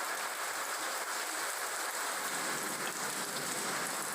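Steady rain falling on a surface, an even hiss with small scattered drop ticks.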